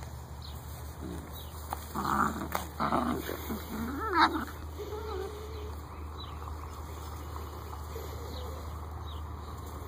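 Great Dane puppies play-fighting, giving short growls for a couple of seconds and a brief high yelp about four seconds in, then a faint whimper.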